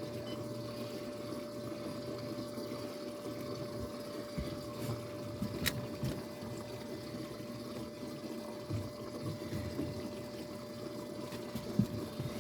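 Water lapping and sloshing along the shore, a low irregular wash, with a faint steady hum underneath.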